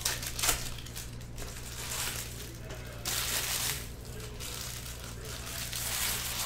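Foil wrappers of baseball card packs crinkling and tearing as the packs are opened by hand. Sharp crackles come near the start, and a louder stretch of crinkling comes about three seconds in.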